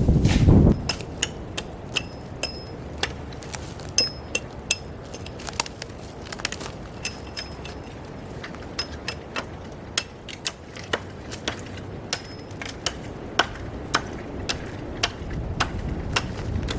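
Irregular sharp knocks of a hand tool striking wood, roughly one or two a second, some with a short metallic ring. A gust of wind rumbles on the microphone at the very start.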